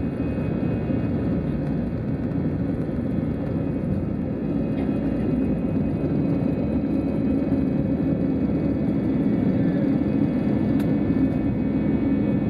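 Airbus A320-200 jet engines at takeoff thrust, heard from a cabin window seat beside the engine: a steady, loud rush of engine and air noise with a constant low hum, through the takeoff roll, rotation and lift-off.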